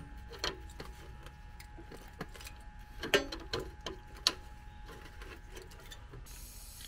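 Scattered light metallic clicks and taps from hands working the copper refrigerant tubing and coil inside an AC condenser cabinet, about half a dozen at irregular spacing, the sharpest a little past three seconds in.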